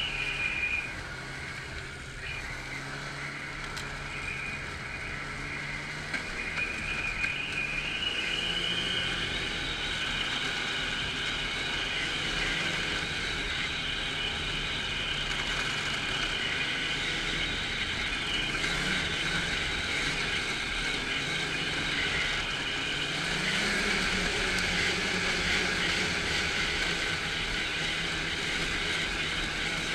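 Snowmobile engine running under way, heard from the rider's seat. It eases off about a second in, then pulls steadily again, its note wavering with the throttle and a high whine running over it.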